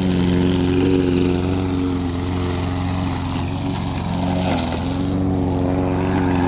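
Briggs & Stratton overhead-valve single-cylinder engine on a walk-behind lawn mower running steadily, its note dipping briefly about two-thirds of the way through.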